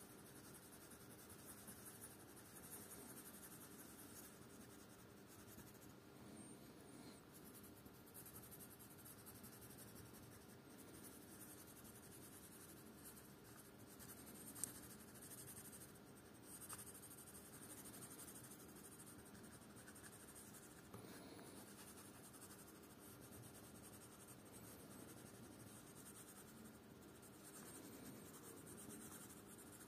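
Colored pencil scratching on paper in quick back-and-forth shading strokes, faint and continuous. A single sharp click comes about halfway through.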